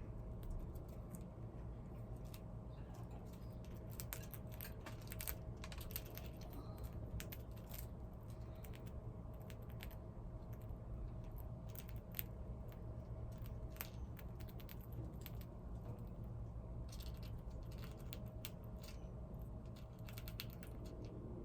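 A pet crunching crispy treats: irregular, sharp little crunches over a steady low hum.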